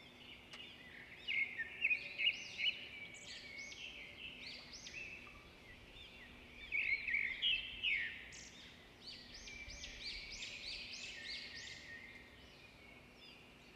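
Several birds chirping and calling, many quick rising-and-falling notes overlapping one another, in two busier spells about two seconds in and again from about seven seconds on.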